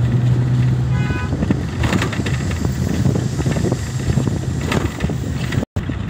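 Road and engine noise of a moving vehicle in city traffic: a steady low rumble and hum with tyre and wind noise. A short horn beep sounds about a second in, and the sound cuts out for an instant near the end.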